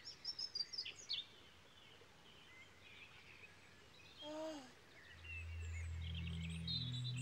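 Birdsong chirping over quiet outdoor ambience, with a short baby's coo falling in pitch about four seconds in. About five seconds in, a low held music note begins, joined by a second note near the end.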